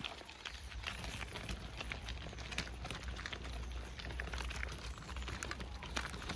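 Pram wheels and footsteps crunching steadily on a gravel path, a dense crackle of small stones with a low rumble under it.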